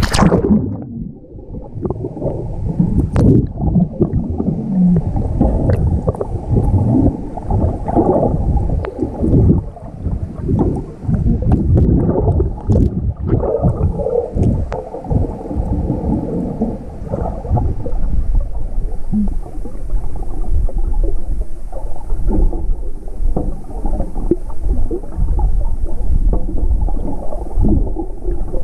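Muffled underwater sound picked up by a camera in its waterproof housing: a splash right at the start as it goes under, then steady low churning and sloshing of water with many irregular knocks and thumps.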